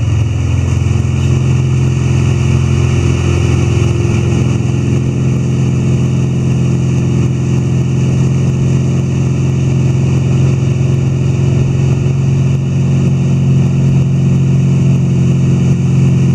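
Motorboat engine running steadily at towing speed, a loud even drone, with the rush of the churning wake over it.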